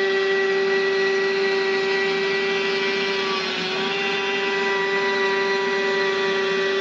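High-speed spindle of a desktop CNC milling machine running steadily, a constant high hum with a rushing noise over it; its pitch dips briefly about three and a half seconds in.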